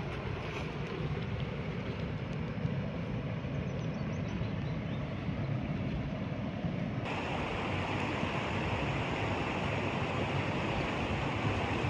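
Steady rushing of running water from a small waterfall stream into a rock pool, mixed with wind. The noise changes abruptly about seven seconds in and becomes hissier.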